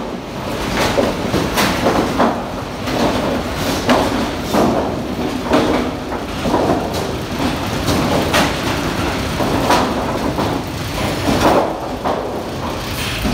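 Sawmill timber stacker running: chain and roller conveyors clatter steadily, with frequent irregular knocks as sawn softwood battens are carried and bump along the steel deck.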